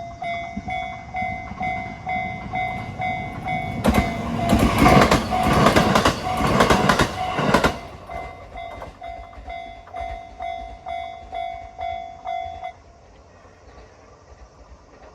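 Japanese level crossing alarm dinging steadily about two to three times a second while a JR Nikko Line train passes, its wheels clattering over the rail joints for about four seconds. The alarm stops a few seconds after the train has gone.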